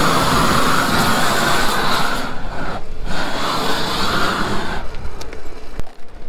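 Propane roofing torch running at full flame with a steady jet noise. The flame breaks off briefly about three seconds in and is cut back near five seconds in, leaving a much lower sound.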